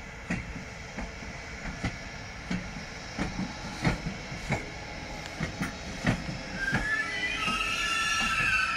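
ÖBB Siemens Taurus electric locomotive rolling slowly over station pointwork, its wheels knocking irregularly over rail joints and points. About two-thirds of the way through, the wheels start squealing in several high, wavering tones on the curve.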